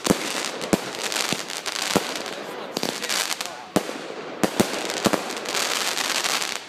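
A Diablo consumer firework going off: a continuous hissing crackle punctuated by about eight sharp cracks at irregular intervals.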